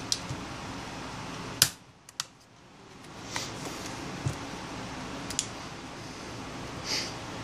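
Plastic clips of an LG Nexus 5's back cover clicking and snapping loose as a thin metal pry tool is worked around the edge, with the sharpest snap about one and a half seconds in and a few lighter clicks and scrapes after.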